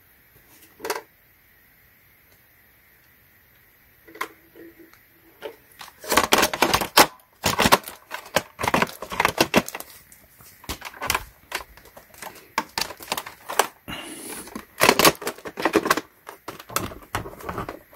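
Irregular hard-plastic clicking and clacking, a few isolated clicks at first, then dense clusters from about six seconds in, as a NERF Rival Perses MXIX-5000 blaster is handled and its hopper lid worked.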